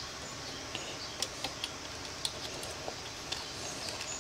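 Scattered small, sharp clicks and ticks as hands work a rubber power steering hose and its fittings into place.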